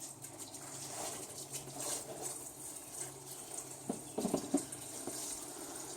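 Used engine oil pouring in a steady stream from the oil pan's drain hole into a container, with a few light knocks about four seconds in.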